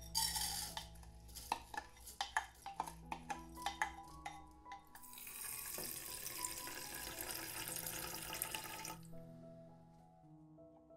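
Washed rice tipped from a glass bowl into a pot, with a run of small clinks and taps over the first few seconds. Then water pours steadily onto the rice for about four seconds and stops. Soft background music plays underneath.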